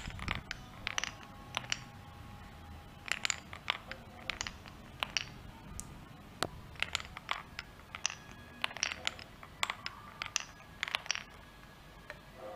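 Marbles rolling and clattering through a wooden marble run, with many sharp, irregular clicks and knocks as they drop through the blocks and strike the wooden channels.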